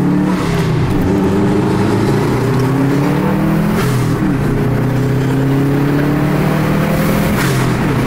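Turbocharged 2.5-litre flat-four of a stage-2-tuned Subaru Legacy GT, heard from inside the cabin, pulling hard through the gears. The revs climb, drop back at each upshift and climb again, with a brief hiss at the shifts about four and seven seconds in.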